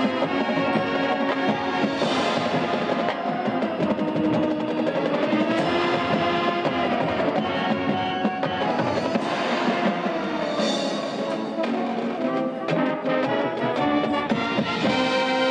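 High school marching band playing: brass and saxophones holding sustained chords over drums and front-ensemble percussion.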